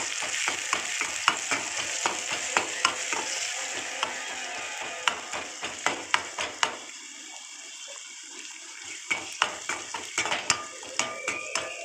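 Chopped onion, tomato and green chilli sizzling in hot oil in a metal kadai, with a metal ladle scraping and clicking against the pan as they are stirred. The stirring clicks stop for about two seconds past the middle, then start again.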